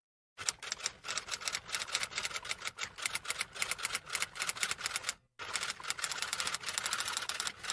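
Rapid, even clicking like a typewriter over a steady ringing tone, cutting out abruptly for a moment about five seconds in and then resuming.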